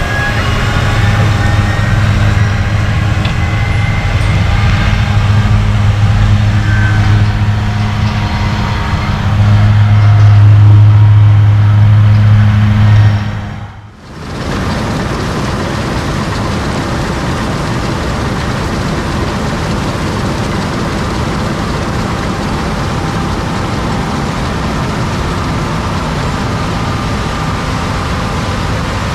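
Harvest machinery engines running in a soybean field: a deep, steady engine hum that grows louder around ten seconds in. About fourteen seconds in the sound cuts briefly, then gives way to a steadier, even machine noise without the deep hum.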